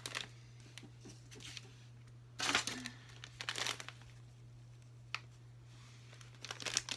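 Treat bag crinkling in several short bursts as it is handled, over a steady low hum.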